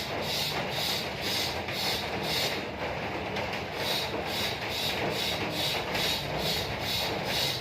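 Hand tool rasping back and forth in steady strokes, a little over two a second, as in working pipe by hand.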